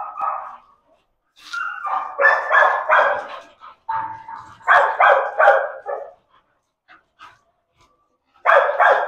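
Bull terriers barking in four quick volleys of several barks each, with short pauses between the volleys.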